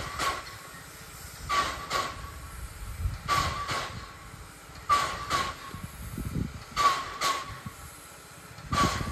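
Small steam tank locomotive working slowly with a short train, its exhaust chuffing in pairs of sharp beats about every two seconds over a low rumble of the moving train.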